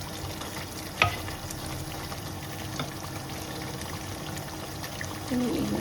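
Chicken pieces frying in chili paste and oil in a saucepan, a steady sizzle, with a sharp knock about a second in and a few faint ticks.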